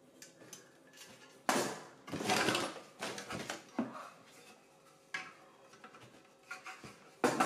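Electrical fittings handled in a cardboard box: a galvanised steel switch box and a white plastic mounting box lifted out among wire coils and packets, with irregular rustling, scraping and knocks. Music starts right at the end.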